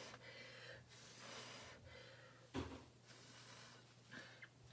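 Faint puffs of mouth-blown breath, one roughly every second, as a person blows wet fluid acrylic paint across a canvas. A short low thump comes about two and a half seconds in.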